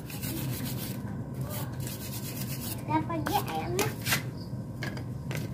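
Irregular rubbing and scraping strokes on motorcycle engine parts being cleaned, over a steady low hum, with a few words spoken about three seconds in.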